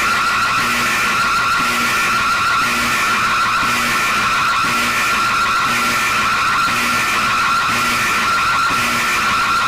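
Mock Emergency Alert System alarm: a loud, harsh electronic alarm tone held steady, with a faint low pulse repeating about once a second.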